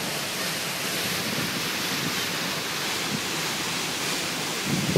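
Steady rushing noise of wind and water on the open deck of a moving river cruise ship, with wind buffeting the microphone and a brief low rumble near the end.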